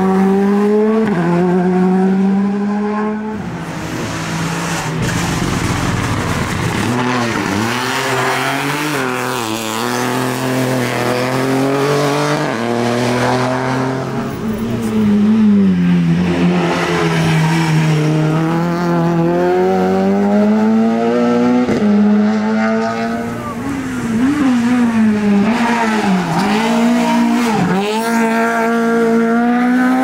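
Rally car engines driven hard through a tarmac hairpin. The pitch climbs through each gear, breaks off at the shifts and falls away on braking and downshifting, with the cars coming past one after another.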